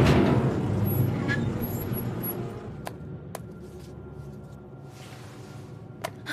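Film sound effects: a heavy low rumble that fades away over the first few seconds, then a quiet, tense background with a few sharp clicks and knocks, under faint music.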